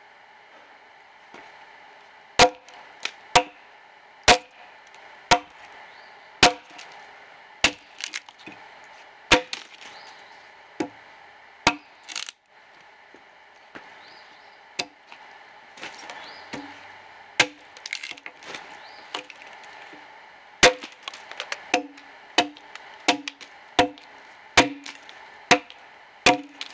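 Axe blows chopping into the side of a dead ash log being hewn, sharp wooden knocks at about one a second. There is a short break a little past the middle, and one longer crack near the middle.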